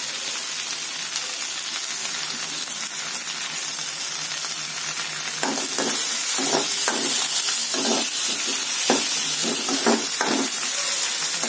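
Sliced onions and tomatoes sizzling in butter in a pan, with a steady frying hiss. From about halfway through, a spatula stirs them, making a run of quick scraping strokes against the pan.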